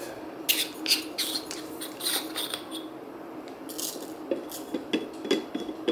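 Hand coffee grinder being handled as its grounds cup is taken off: scattered light clicks, taps and small scrapes of the metal and plastic parts, over a faint steady hum.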